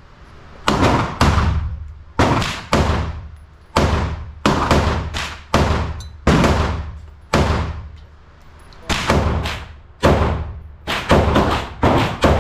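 AR-style rifle firing single shots indoors, about twenty at uneven intervals, some in quick pairs, each crack ringing off in the hard-walled range.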